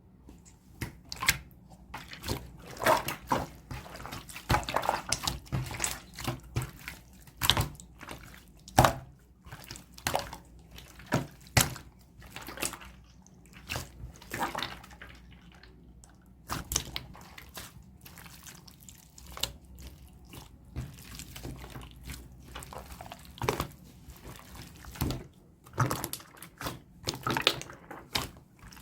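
Three old slimes being mixed and kneaded by hand, making irregular wet squelches and sharp clicking pops, a few each second.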